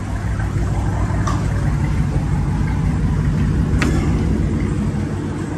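Car engine idling through a catless exhaust, a steady, deep, pulsing rumble, with a sharp click about four seconds in.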